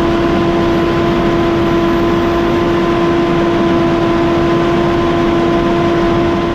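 Heavy farm machine running steadily, its engine noise carrying a constant whine. The sound stops suddenly at the very end.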